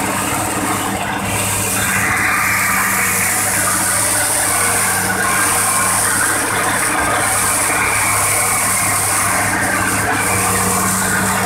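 Excavator's diesel engine running steadily with an even low hum, a higher rushing noise joining about two seconds in.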